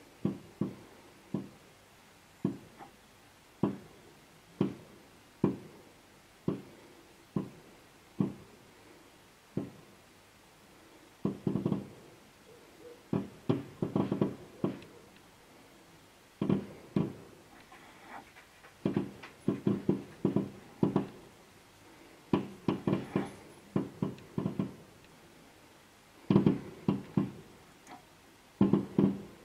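Professional aerial fireworks bursting: single bangs about once a second at first, then, after about ten seconds, repeated volleys of rapid bangs in quick clusters.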